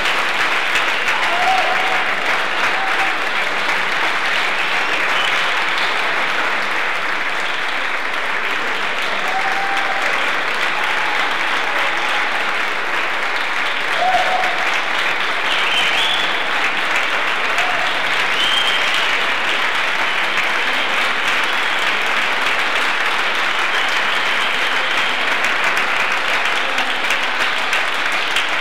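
Audience applauding steadily, with a few brief calls from the crowd.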